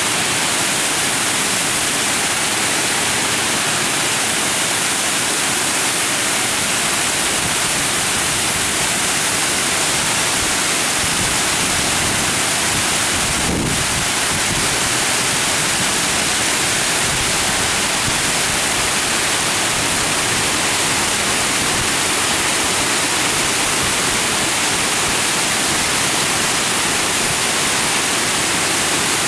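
Water pouring over a stepped weir, a steady, unbroken rushing with much hiss in the high range.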